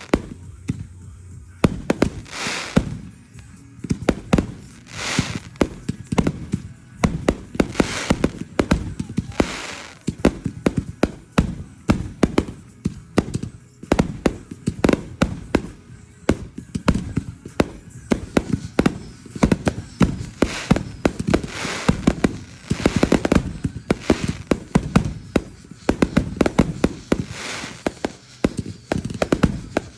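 Fireworks going off in a dense run of sharp bangs and crackles, several a second, with louder swells every couple of seconds.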